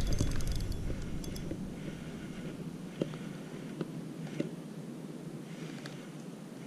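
Spinning reel being cranked on a lure retrieve: a soft steady whir with a few light clicks, around three and four and a half seconds in.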